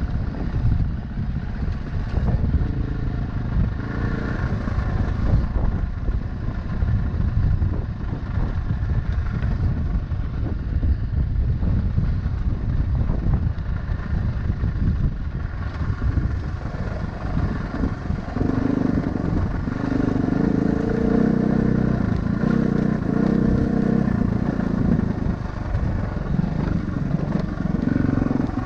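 Vehicle engine running steadily while driving an off-road trail, with a stronger, pitched engine note for several seconds in the second half.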